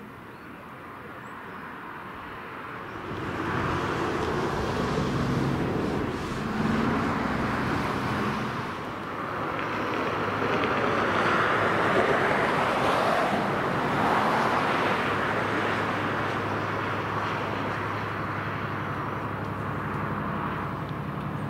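Rushing noise of a car passing on the road beside the line swells and fades through the middle. Near the end the steady low drone of an approaching Irish Rail 071 Class diesel locomotive, with its EMD 12-cylinder two-stroke engine, builds in.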